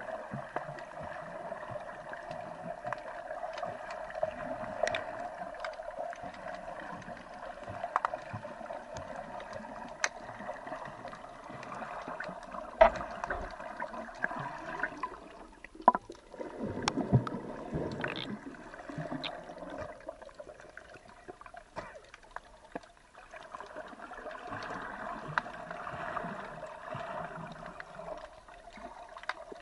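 Underwater sound picked up by a submerged camera: a steady muffled hum with scattered sharp clicks and gurgling water. Past the middle the hum fades for a few seconds and a low swirling rush of water comes in.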